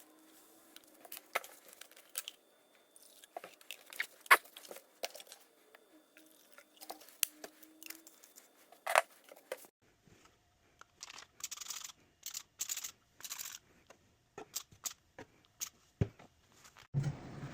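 Hands handling small objects at close range: scattered sharp clicks and taps, then a run of short hissing strokes at about two a second.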